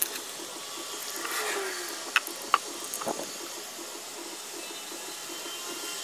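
Steady background hiss with a few light clicks and taps about two to three seconds in, from hands handling a roll of double-sided mounting tape and peeling its backing.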